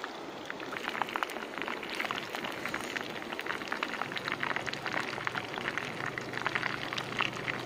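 Pig ears frying in hot oil in a small pan over a wood fire, sizzling with a dense, irregular crackle and spatter.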